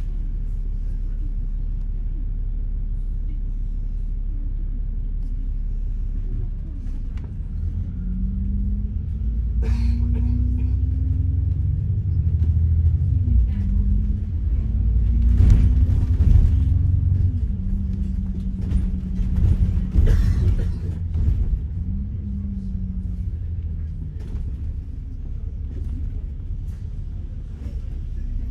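Low, steady rumble of a running vehicle, with an engine note that rises and falls through the middle. A few short, harsh noises stand out about ten, sixteen and twenty seconds in.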